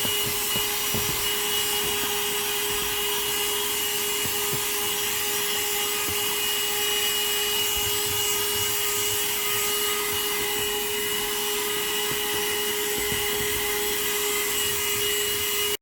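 Handheld cordless mini vacuum cleaner (CherylonPower, 150 W) running steadily while cleaning a car's interior: an even motor whine over a rush of air, cutting off suddenly at the end.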